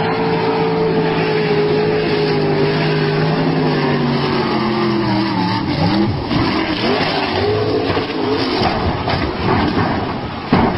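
Racing boat engine running loud at a high, steady pitch that slowly sinks, then breaks up about halfway through into rough, wavering noise.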